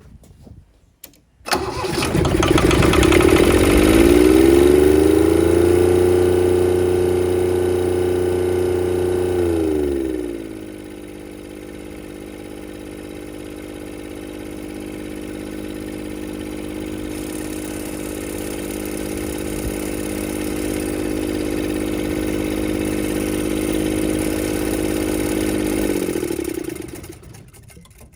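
Kubota D722 three-cylinder diesel of a Denyo TLW-300 engine welder starting, rising to a steady fast run, then dropping to a lower steady speed about ten seconds in. It runs on at that speed and shuts down near the end.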